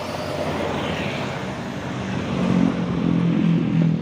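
Heavy diesel vehicle passing on the road, most likely a coach: a low, steady engine note over tyre and road noise that grows louder in the second half.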